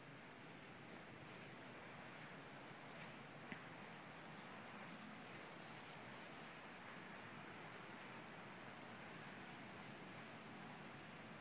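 Steady, high-pitched insect chorus trilling on one pitch over faint outdoor ambience, with a single small tap about three and a half seconds in.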